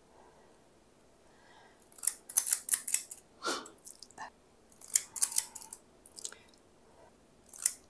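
Squeeze-handle cookie scoop clicking and scraping as its lever is worked to release dough, in several short bursts of crisp metallic clicks starting about two seconds in.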